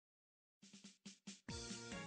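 Silence at first, then a few short percussive taps, and background music starting about one and a half seconds in.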